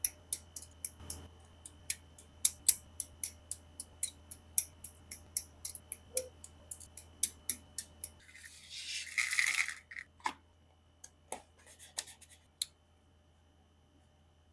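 Plastic model-kit building: the parts and tools of an MG Freedom 2.0 Gundam kit make a quick run of sharp plastic clicks and snips, about three or four a second. They are followed by a brief scraping rustle and a few last clicks.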